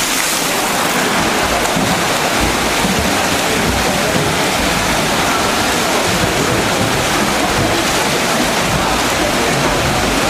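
Several swimmers racing in a pool, their strokes splashing as a steady rushing wash of water noise.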